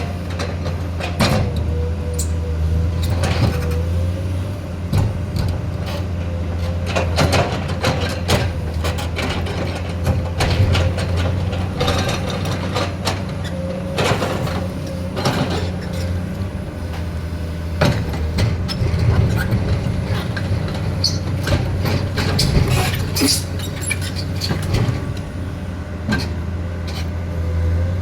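Excavator's diesel engine running steadily under load, with a wavering whine and many irregular knocks and clatters as it loads a trailer.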